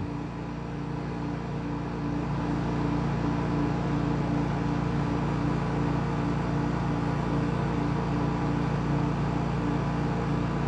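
Steady machine hum made of several low, fixed tones over a noise floor, one of them pulsing evenly; it grows slightly louder about two seconds in and then holds.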